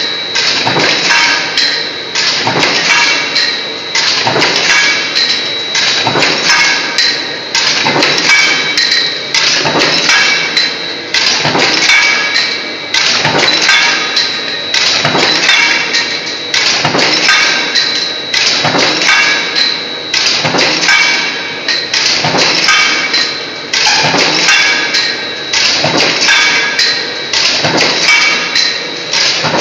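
High-speed eccentric stamping press punching LED lamp caps from coiled metal strip fed by an NC servo roll feeder: a steady, rapid run of metallic strokes, with a thin steady high whine over them.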